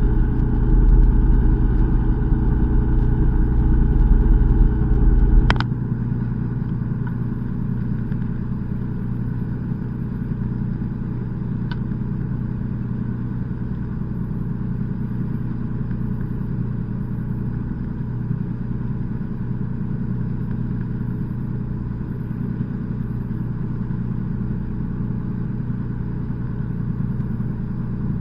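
Fishing boat's engine humming steadily. About five seconds in, a heavy low rumble cuts off with a click, and the engine hums on a little more quietly.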